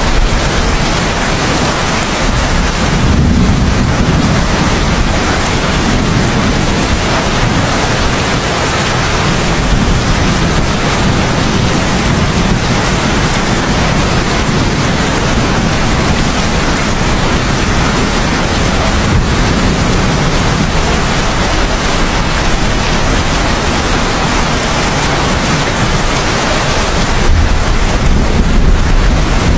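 Heavy rain pouring steadily, with low thunder rumbles swelling now and then, the strongest near the end.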